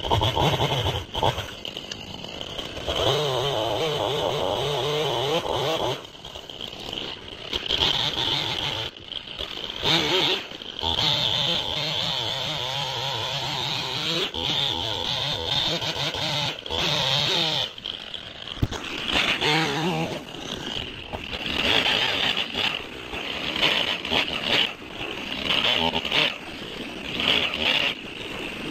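Stihl MS271 Farm Boss two-stroke chainsaw cutting into a tree trunk, the engine opening up and easing off several times with short dips in loudness.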